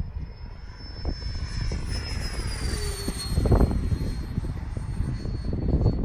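Electric ducted fan of a FlexJet RC model jet whining in flight, its high whine dropping in pitch about halfway through. Gusty wind buffets the microphone throughout.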